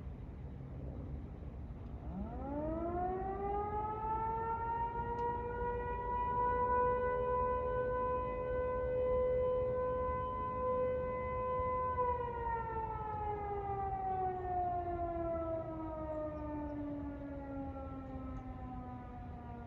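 Eclipse 8 civil defense siren sounding a noon blast. It winds up about two seconds in to a steady tone, holds for about ten seconds, then slowly winds down.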